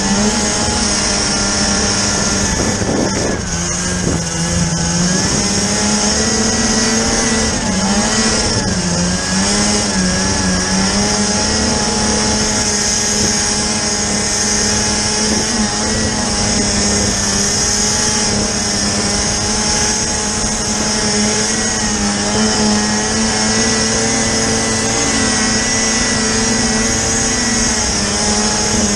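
Snowmobile engine running steadily at high revs, its pitch dipping and recovering around three to five seconds in and again around eight to ten seconds as the throttle eases and picks back up, with a steady high hiss over it.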